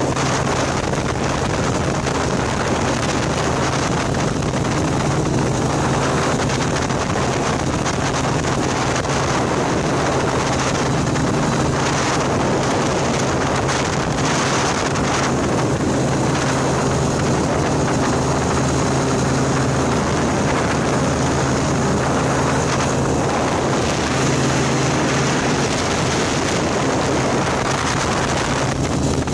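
Light aircraft engine droning steadily in cruise, with wind rushing over the microphone.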